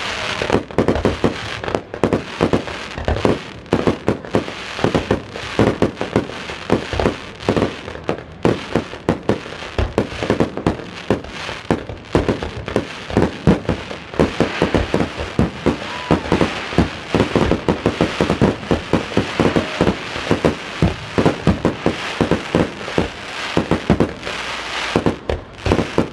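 A fireworks display: aerial shells and comets bursting in quick, overlapping succession, several bangs a second with no pause.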